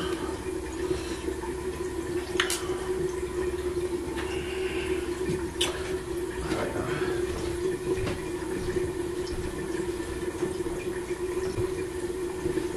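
Water running steadily from a tap, with a steady hum under it and a few sharp clicks and knocks over it.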